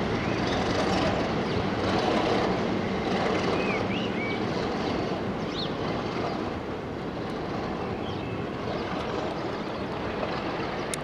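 Pair of Class 37 diesel locomotives with their English Electric V12 engines, and their train, running away into the distance: a steady low rumble that slowly fades.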